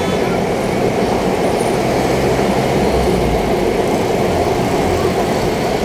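Train passing, a steady rumble without a break.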